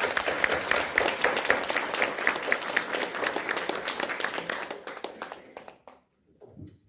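Audience clapping in applause, many hands at once, thinning out and dying away after about five seconds.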